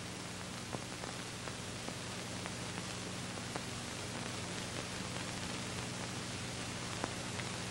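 Steady hiss with a low hum under it and a few faint clicks, about a second in and again near the end: recording background noise with no other sound in it.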